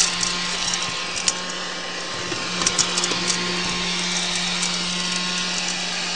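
12-volt beater-bar vacuum cleaner running with a steady hum, powered by a wood stove's thermoelectric generator. Scattered sharp ticks come from crumbs and grit being picked up off the floor.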